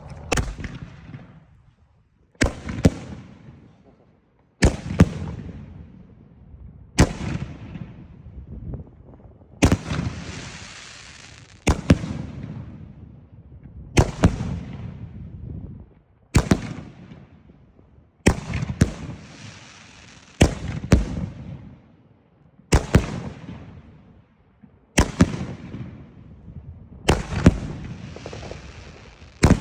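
Three From Hell 3x25 firework cake firing volley after volley, about one every two seconds: each a close pair of sharp bangs, a launch thump then the burst, with a decaying rumble and a lingering hiss after some of the breaks.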